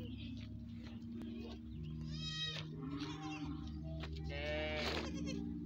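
Young goat kid bleating twice: a short high bleat about two seconds in, then a longer, louder one near the end.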